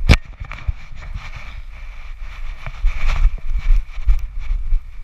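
Wind buffeting the microphone of a GoPro strapped to a running dog's back, with irregular knocks and jolts from its strides shaking the camera. A sharp knock comes just after the start.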